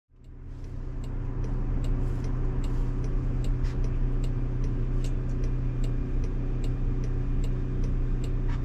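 Ride noise inside a Waymo robotaxi's cabin: a steady low road drone that fades in over the first second, with scattered sharp ticks.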